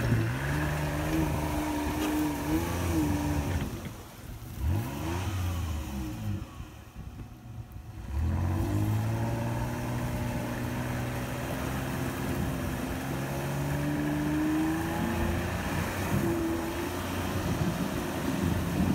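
Off-road jeep engine revving as it churns through a mud hole. The revs rise and fall, drop away for a few seconds near the middle, then climb back and hold.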